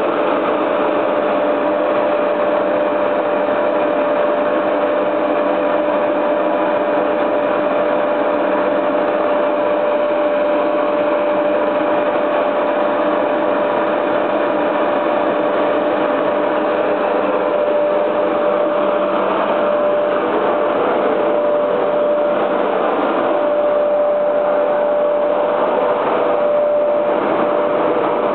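Steady machinery drone from the pumps and blower of a running EPS (styrofoam) block moulding machine, with one constant whining tone through it.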